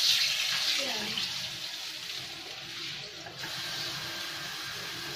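Water poured into a hot frying pan with leftover frying oil, sizzling loudly at first, then settling to a quieter, steady sizzle.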